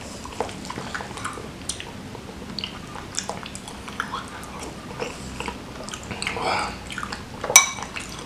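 Close-up wet chewing of spoonfuls of seblak, a soupy Indonesian dish with macaroni, with small mouth clicks throughout. Near the end the metal spoon strikes the ceramic bowl with one sharp, ringing clink.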